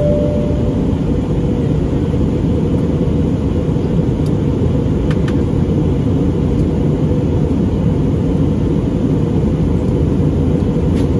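Steady cabin noise of an Airbus A320neo in flight, heard from a window seat: an even, low rumble of engines and airflow. A short, faint steady tone sounds right at the start.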